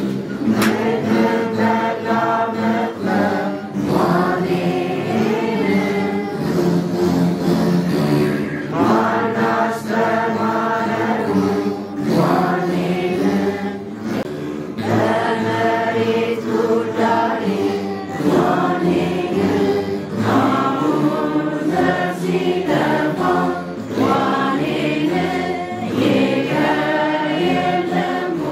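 A group of voices singing an Ethiopian Orthodox mezmur together in slow, chant-like phrases, to the accompaniment of begenas (Ethiopian lyres).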